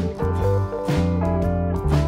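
Instrumental background music led by guitar, with held notes and occasional sharp strokes.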